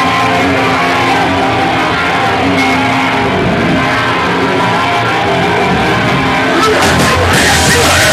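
Live hardcore/metal band playing loud, distorted electric guitar with the full band behind it, heard from inside the crowd in a small room. The music grows a little louder about seven seconds in.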